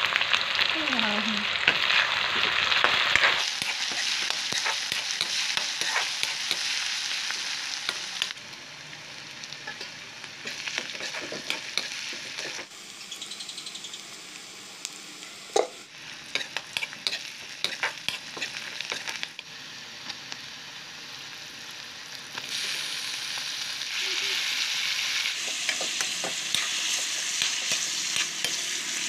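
Onions and then mutton pieces sizzling in hot oil in a wok, with a spatula scraping and clacking against the pan as they are stirred. The sizzle jumps in level abruptly several times, and one clack about halfway is loudest.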